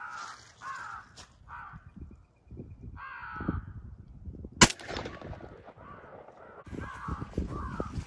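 Crows cawing in repeated harsh calls. A single loud shotgun shot comes a little past halfway and is the loudest sound. The cawing starts up again about two seconds after the shot.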